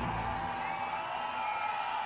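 Concert audience cheering after a rock song's final hit, with a few thin high held and gliding tones over the crowd noise.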